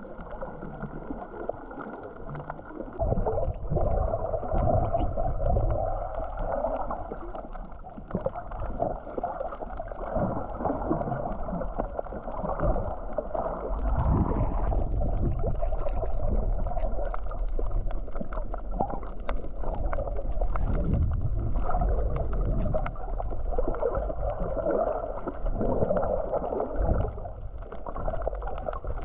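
Muffled water sloshing and rumbling that swells and fades, with scattered small clicks. The low rumble comes up about three seconds in and again more strongly about halfway through.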